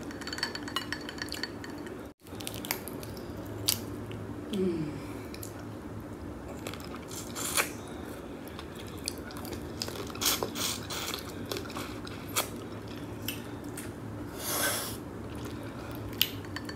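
Close-miked eating of shrimp in a thick spicy sauce: wet chewing and lip smacking with many short clicks and squelches as the shrimp are peeled by hand, over a steady low hum.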